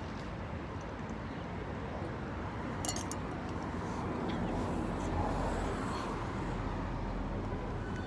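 Steady outdoor background noise with a constant low rumble, and a few sharp clicks about three seconds in.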